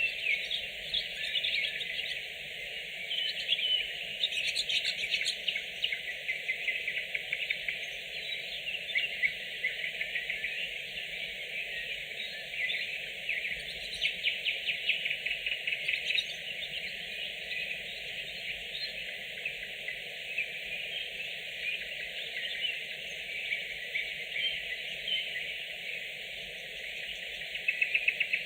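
Nightingales singing at night: continuous, rich song with fast runs of repeated clicking and piping notes.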